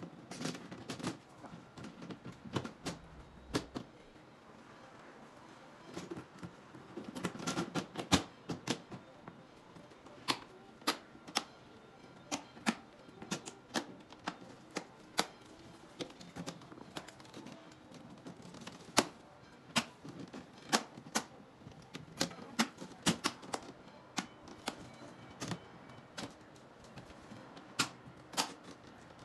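Irregular sharp plastic clicks and taps as clear plastic doors are handled and pressed into place on a white plastic modular storage cabinet, with a busier flurry of clicks near the first third.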